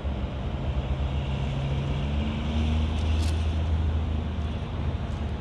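Steady low drone of heavy truck engines running in the distance, with a few steady low hums layered in it.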